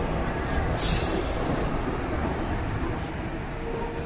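Two-car MTR Light Rail Phase I light rail train rolling past at low speed as it pulls into a stop, its wheels rumbling on the rails and slowly fading as it moves away. A short sharp hiss comes about a second in.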